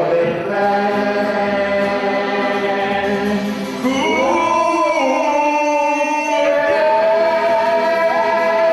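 Several men singing long held notes together with accordion and acoustic guitar; about four seconds in, one voice slides up to a higher note and holds it.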